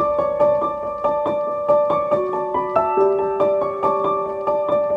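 Background piano music: a gentle piece of single notes struck a few times a second.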